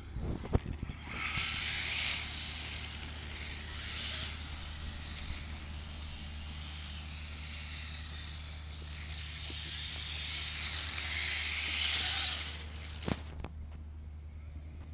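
Electric brushless RC car driving, a steady hissing run noise that swells about two seconds in and again near the end, then stops. A few clicks come before it starts, and there is a sharp knock just after it stops.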